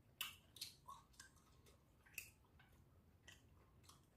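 A man chewing food: several short, faint wet mouth clicks and smacks at irregular moments, the loudest just after the start.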